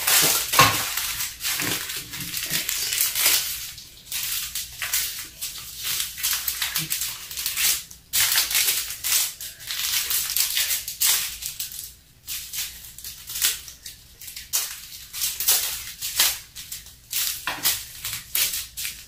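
Small plastic baggies of resin diamond-painting drills being handled and sorted: continuous irregular crinkling of plastic with the rattle of the tiny drills inside.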